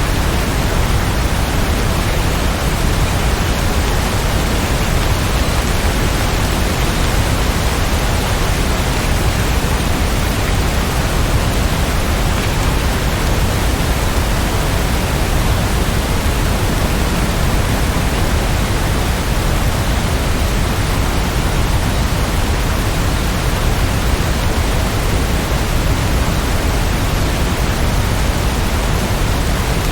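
Steady, dense rain: an even hiss.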